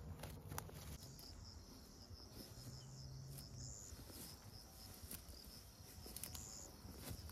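Insects chirping faintly in a rapid, even pulse, with a few soft rustling steps through bracken near the start.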